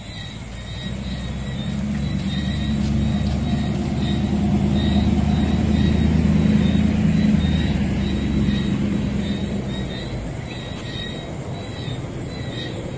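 A motor vehicle passing by: a low engine hum that swells over several seconds, is loudest about halfway through, and then fades away.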